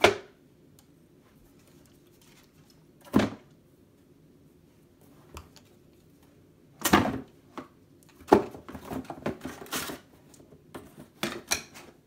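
Empty cardboard wine box being handled and folded: sharp knocks at the start and about three seconds in, then a busier stretch of cardboard scrapes and knocks from about seven seconds in.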